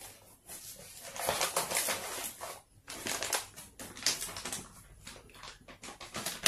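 Plastic wrapping and cardboard packaging crinkling and rustling as a bipod is taken out of its box and unwrapped, in irregular bouts of crackling with short pauses between.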